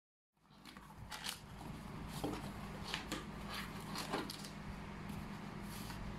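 Corrugated cardboard folded and pressed around a book by hand: a run of short scrapes and crinkles as the flaps are creased over, with a low steady hum underneath.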